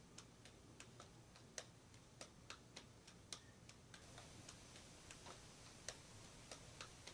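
Near silence: faint, soft taps of juggling balls landing in the hands, about three a second, over quiet room tone.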